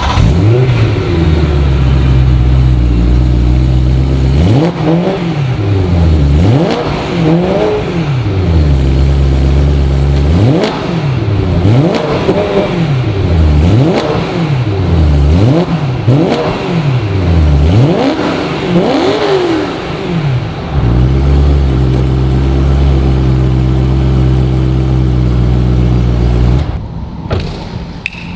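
BMW E92 M3's 4.0-litre naturally aspirated V8, just started, idling, then revved about a dozen times in quick blips through the stock exhaust. It settles back to a steady idle and cuts off near the end.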